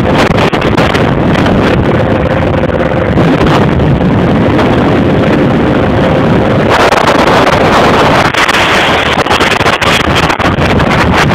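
Wind buffeting the microphone on a motorcycle moving at road speed, with the engine running underneath. The rush grows stronger about seven seconds in.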